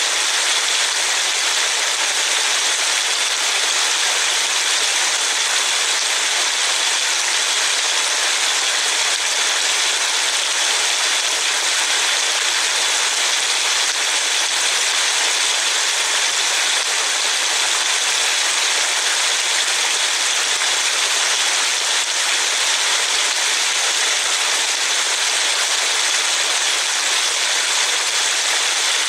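Heavy rain falling steadily, an even hiss heard from inside a car's cabin.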